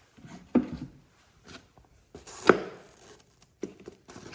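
Cardboard box and foam packaging being handled: a few sharp knocks with rustling, the loudest about two and a half seconds in.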